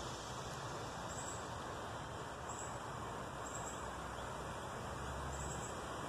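Abu Garcia Black Max 30 spinning reel being cranked, giving a faint high squeak every second or so over a steady hiss.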